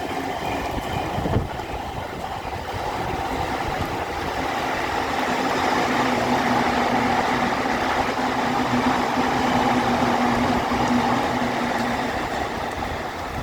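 A train running through the station, its steady low hum growing louder through the middle and fading near the end, over a constant hiss of heavy rain and wind. A single short knock about a second in.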